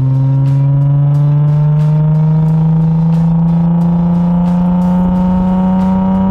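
Nissan 350Z's 3.5-litre V6 engine pulling under steady acceleration, its note rising slowly and evenly in pitch as it climbs through the revs in one gear. Faint regular ticks sound under it.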